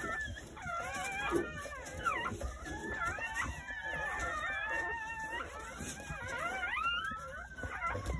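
Newborn Jindo puppies crying: several high, wavering squeals overlapping with no break.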